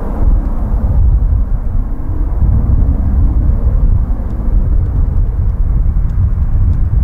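Low, continuous rumble of a four-engined Boeing 747 on final approach, heard from some distance out with most of the sound in the deep bass.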